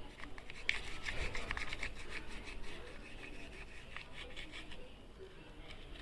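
A brush scrubbing the inside of a Bajaj Pulsar NS200's front disc brake caliper, in quick, uneven scratchy strokes, to clear the grime loosened by WD-40.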